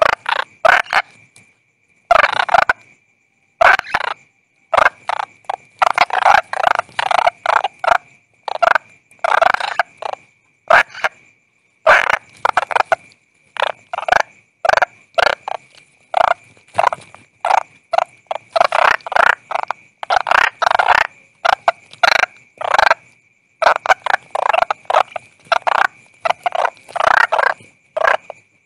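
Frogs and toads calling in quick runs of short, rattling croaks, broken by brief pauses, over a faint steady high-pitched tone.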